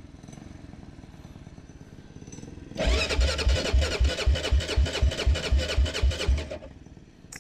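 Honda 400EX's electric starter cranking its single-cylinder four-stroke engine for about four seconds, with a steady starter whine and about four compression thumps a second, and the engine does not fire before the cranking stops. The quad has died on the trail and won't start; the owner suspects no spark.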